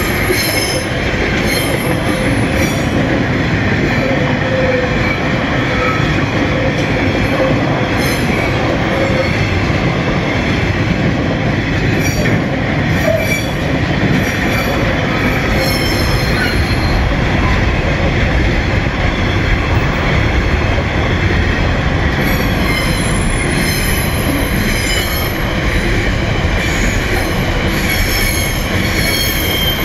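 Freight train wagons, container flats and empty log wagons, rolling steadily past on the rails, with a continuous rumble of wheels and high-pitched metallic wheel squeal that rises and fades over the passing cars.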